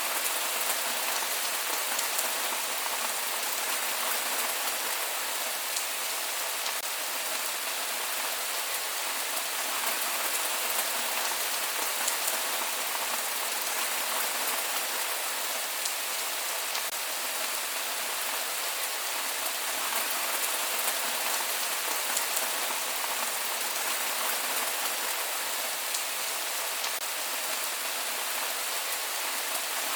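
Steady rain falling, an even hiss of drops with many small sharp drop hits scattered through it, and no thunder.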